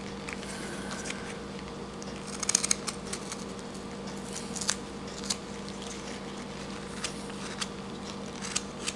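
Whittling knife cutting into a small wood carving: scattered short scraping snicks, a quick run of them about two and a half seconds in and single cuts after, over a low steady hum.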